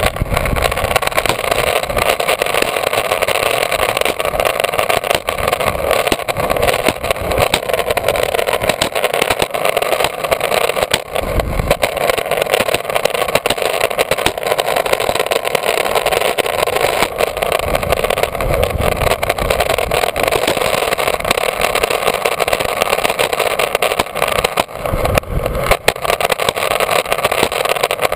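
Sector 9 longboard's urethane wheels rolling steadily over concrete, heard close up from a camera on the board: a continuous rolling rumble, with gusts of wind buffeting the microphone.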